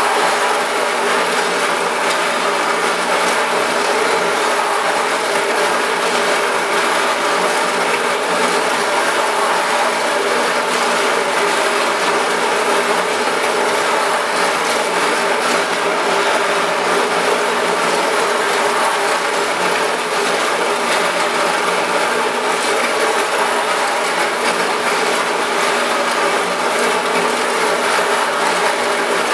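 Trepanning machine running: a meniscus glass mirror blank turns under a weighted steel ring tool, with 46-grit silicon carbide slurry grinding between steel and glass. The grinding is steady and unbroken, with a constant hum underneath.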